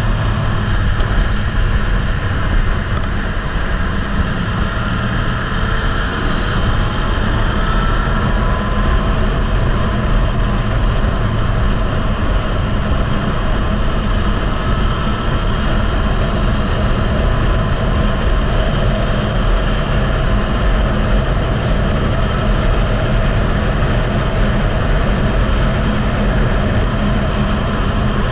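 Loud, steady wind buffeting on the microphone of a motorcycle at track speed, with a Yamaha MT-09's three-cylinder engine running underneath and a few faint rises and falls in pitch as the revs change.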